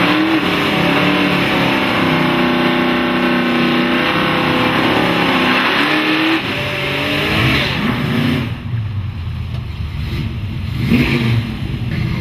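1955 Chevrolet sedan's engine held at high revs while the rear tyres spin in a burnout. The revs drop about six seconds in, followed by a few short throttle blips as the car rolls forward to stage.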